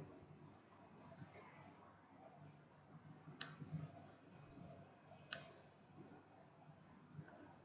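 Computer mouse clicking over quiet room tone: a few faint clicks about a second in, then two sharp single clicks about two seconds apart.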